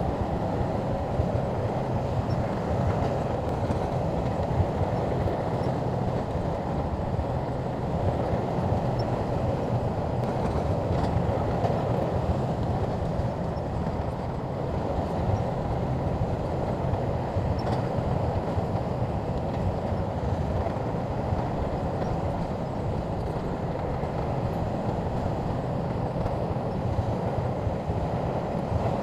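Shantui bulldozer's diesel engine running steadily as the machine works.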